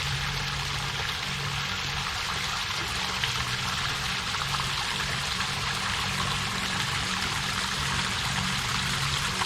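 Waterfall: falling water rushing steadily, with a low, faintly pulsing hum underneath.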